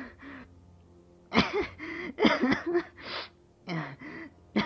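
A person crying: shaky, gasping sobs in several breathy bursts, starting about a second in.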